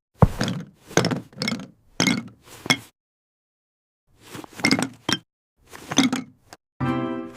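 A string of sharp clinks and knocks, like small hard objects clattering, in quick clusters with a pause about three seconds in. A steady pitched tone starts near the end.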